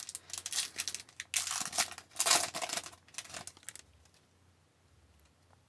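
Foil wrapper of a hockey card pack crinkling and tearing as it is ripped open by hand, in short bursts over about four seconds.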